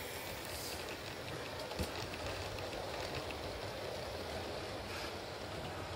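Model railway train running past at track level: a steady running noise of its wheels on the track, with one sharp click about two seconds in.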